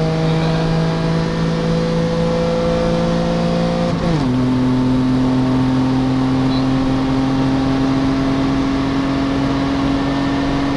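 Four-cylinder car engine at full throttle, heard from inside the cabin during a race: its pitch climbs slowly, drops sharply about four seconds in as it shifts up a gear, then climbs again.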